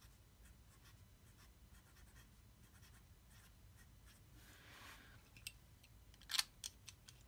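Fountain pen with a broad music nib scratching faintly across paper as letters are written in a series of short strokes. Near the end come a few light clicks and one louder knock.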